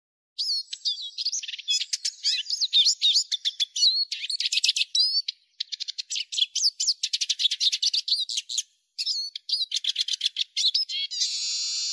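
Eurasian siskin singing: fast twittering and trilling phrases in three runs with short breaks between, then a long, steady buzzing note starting near the end.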